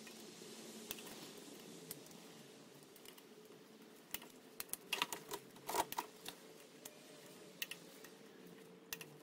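Click-type torque wrench ratcheting and clicking on cylinder head bolts as they are tightened to its set torque of 37. A quick cluster of sharp clicks comes about five seconds in, with a few single clicks later.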